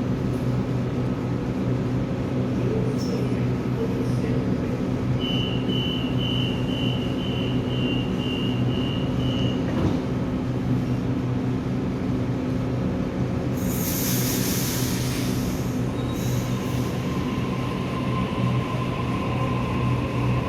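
Sydney Trains electric suburban train standing at the platform with a steady electrical hum. From about five seconds in, a row of short high beeps sounds for about four seconds, about two a second, typical of the door-closing warning. About fourteen seconds in there is a loud hiss of air lasting a couple of seconds, typical of a brake release.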